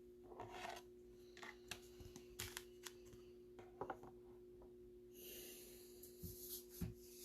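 Faint handling of baseball cards in plastic sleeves and top loaders: scattered light clicks and rustles, with a soft scratchy slide of plastic a little past the middle. A faint steady electrical hum sits underneath.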